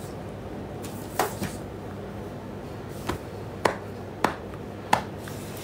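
About six short, sharp clicks spread over a few seconds, over a steady low electrical hum.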